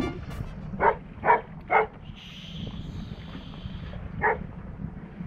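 A dog barking: three short barks in quick succession about a second in, then one more a few seconds later, over a low steady rumble.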